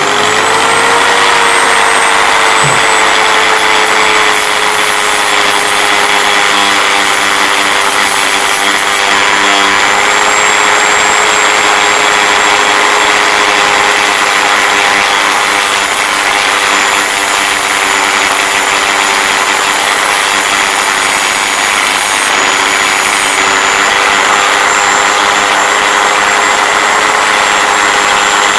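Parkside PFBS 160 B2 rotary multi-grinder running at about 20,000 RPM with a cut-off disc. Its pitch climbs in the first second as it comes up to speed, then holds as a steady whine over a grinding hiss while the disc cuts into a steel screw.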